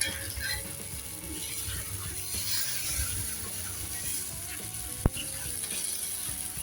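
Masala-coated fish frying in oil on a hot cast-iron dosa tawa: a steady high sizzle with small crackles, and one sharp click about five seconds in. Faint background music plays underneath.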